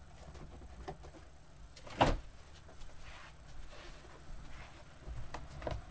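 Handling knocks while a spool of ribbon is fetched: one sharp knock about two seconds in, then lighter knocks and rustling near the end.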